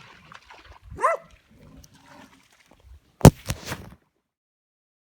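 A single short animal call with a rise-and-fall pitch about a second in, dog-like in kind. About three seconds in there is a sharp knock followed by a few smaller clicks, and then the sound cuts off abruptly.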